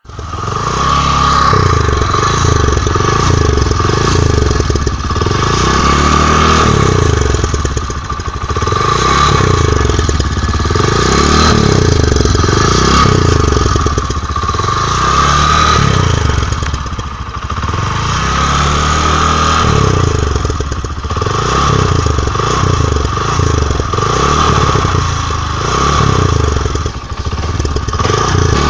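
Motorbike engine sound revving up and falling back over and over, about every two and a half seconds, with a steady high whine running under it.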